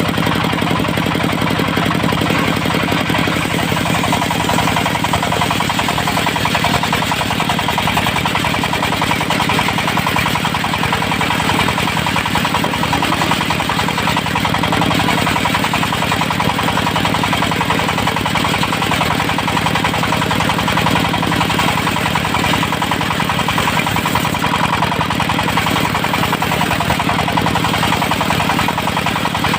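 Diesel engine of a mobile circular sawmill running steadily at a constant speed.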